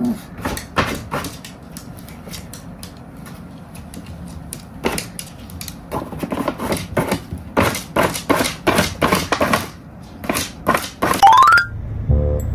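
A small dog's claws clicking and tapping on a hardwood floor as it walks and shifts about, in irregular runs of sharp taps. A short rising sound effect comes near the end, and music starts just after it.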